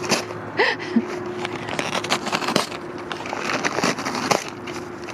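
Paper mailing bag crinkling and tearing as a husky noses and rips into it: an uneven run of rustles and crackles.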